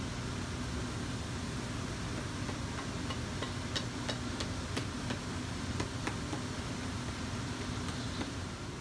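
Steady hum of workshop machinery, with a handful of light, sharp taps about halfway through as a new leather sole is pressed and tapped onto the boot.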